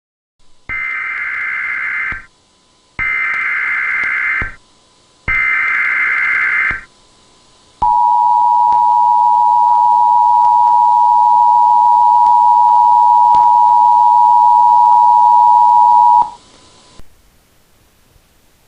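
Emergency Alert System SAME header: three short bursts of screeching data tones, then the EAS two-tone attention signal held steady for about eight seconds before it cuts off. It marks the start of a national alert.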